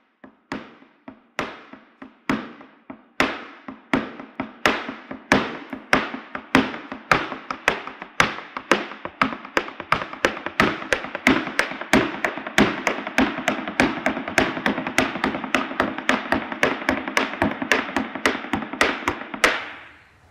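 Opening title music built on sharp percussive strikes, spaced at first, then coming faster and filling in with sustained instrumental tones as it builds, before cutting off suddenly near the end.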